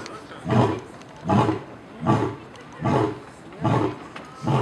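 Lion roaring in a steady run of short, low grunting roars, about one every three-quarters of a second, six in a row.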